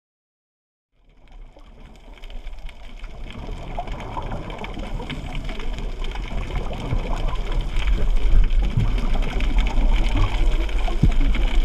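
Underwater ambient noise picked up by a camera in its waterproof housing: a steady low rumble with many scattered clicks and crackles. It fades in about a second in and grows louder over the next several seconds.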